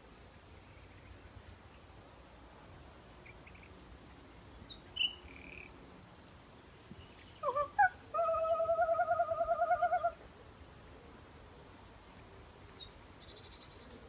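A woman's voice trilling in imitation of a nightingale: a few quick sliding notes, then a fast pulsing trill held for about two seconds, starting about seven seconds in. Faint high bird chirps come and go around it.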